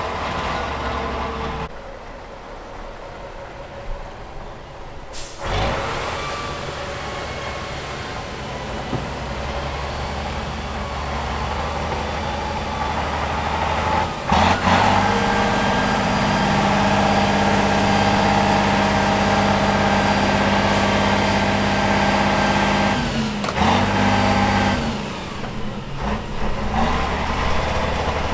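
Diesel engine of an 8x8 trial truck running as the truck drives through a muddy pond, holding a steady, louder note for several seconds through the middle before its revs change again near the end.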